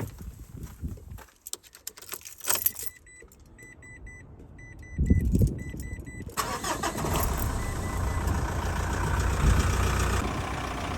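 A truck's chime beeping in short repeated groups after a few clicks and knocks, then the engine cranks about five seconds in, catches and settles into a steady idle.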